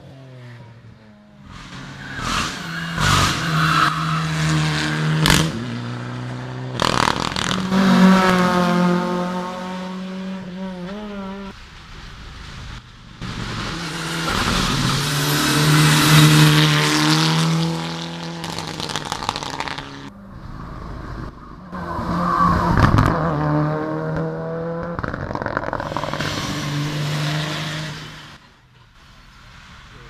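Hillclimb competition cars, among them a Mitsubishi Lancer Evolution, passing flat out one after another: engines revving high and dropping back at each gear change, with a few sharp bangs near the start.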